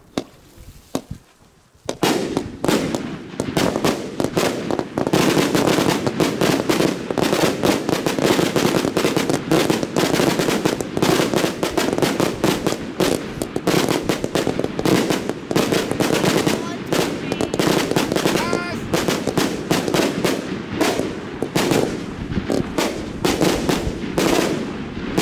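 Nine Pyrofactory Uzi firework batteries firing together. A few single pops come first, then about two seconds in a dense, rapid run of bangs that keeps going.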